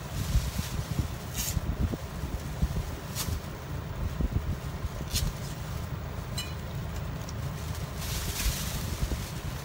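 Short rasps of masking tape being pulled off the roll, the longest near the end, over a steady low rumble.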